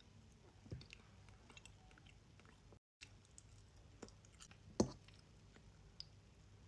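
Close-up chewing and wet mouth sounds of a person eating fresh mango, with small scattered clicks and one louder knock about five seconds in. The sound cuts out briefly about three seconds in.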